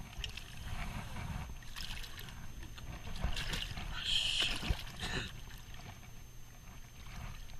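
Shallow river water sloshing and splashing around a wader's legs as a landed striped bass is grabbed by hand and flops in the water, with the louder splashes about three to five seconds in.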